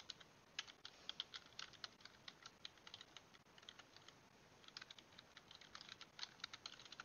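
Computer keyboard being typed on in quick, irregular keystrokes, faint, with a brief pause about halfway through.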